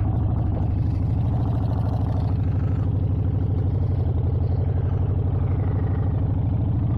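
Harley-Davidson XL 883 Iron Sportster's air-cooled 883 cc V-twin running at a steady, low engine speed, its exhaust loud and unchanging.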